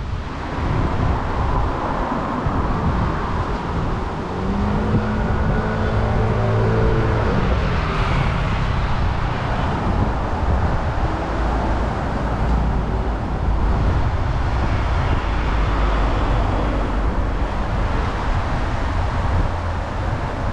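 Street traffic noise with wind rumbling on the microphone; a passing vehicle's engine hum stands out about four seconds in, falling slightly in pitch as it goes by.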